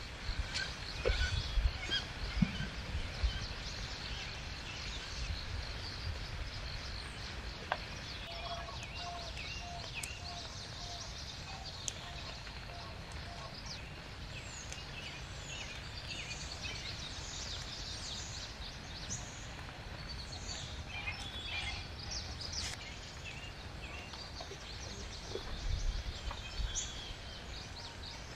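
Forest birds chirping and trilling all through, with a run of about eight evenly spaced lower notes about eight seconds in. Footsteps and rustling in ground plants about a second in and again near the end.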